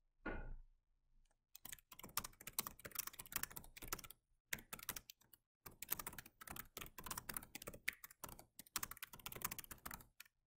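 Typing on a computer keyboard: quick runs of keystrokes starting about a second and a half in, broken by a few short pauses.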